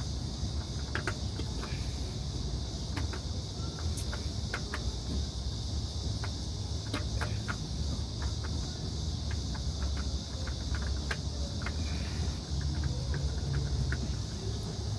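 Scattered light clicks and taps from handling a new oil filter during its fitting, over a steady low rumble and a steady high hiss.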